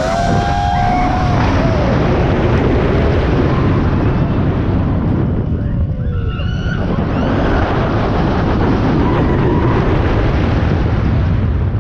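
Loud, steady rush of churning water on a river rapids raft ride.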